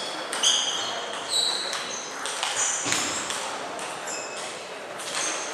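Reverberant sports-hall background during table tennis play: scattered short clicks of balls and brief high squeaks, typical of shoes on the hall floor, coming from other tables.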